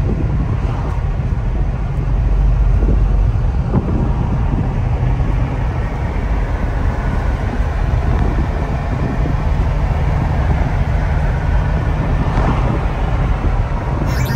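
Cars driving along the road: a steady low rumble of road and wind noise heard from inside a moving car.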